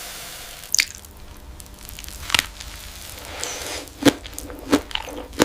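Crisp, glassy cracks and crunches of a 'crystal pizza', about five in all, spaced irregularly and coming closer together toward the end.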